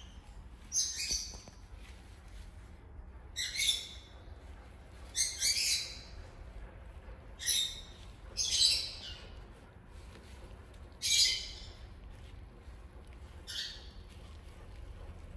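Two kittens play-fighting on artificial turf: about seven short, sharp, hissy bursts come a second or two apart over a low background.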